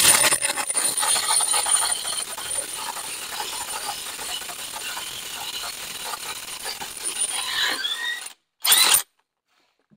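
APR AP33 Pro Max impact wrench hammering rapidly on a tightly torqued 41 mm truck wheel nut to break it loose. The hammering is loudest at first, gets gradually quieter and stops about eight seconds in, followed by one short burst just before nine seconds.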